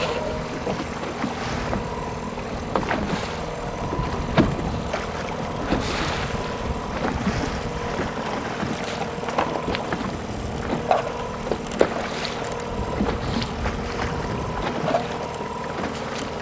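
Outboard motor running steadily at trolling speed, with a continuous hum under wind and water noise. Scattered sharp clicks and knocks sound over it.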